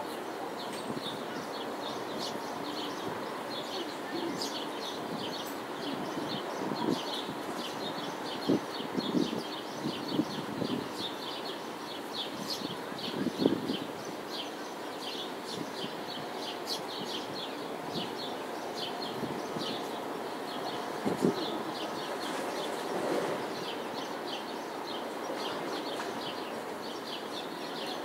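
Small birds chirping in quick, irregular repeated notes over a steady background of city noise, with a few louder brief sounds around the middle.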